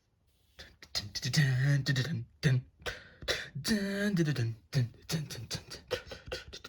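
A person's voice making wordless, rhythmic mouth sounds: clicks and short pitched vocal noises in the manner of beatboxing.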